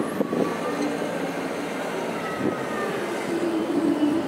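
City street traffic heard from above: a steady wash of vehicle engines, with a low engine drone growing stronger in the second half.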